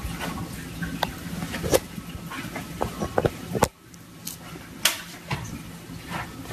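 Cardboard box rustling and knocking against a tabletop as a cat pushes its head down into it, with a run of sharp irregular clicks and taps over a low hum.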